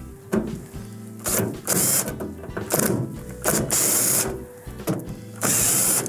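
Cordless drill/driver running in short bursts of a second or less, four or five times, as it backs Phillips screws out of the microwave's sheet-metal wrap. Light mechanical clicking falls between the bursts.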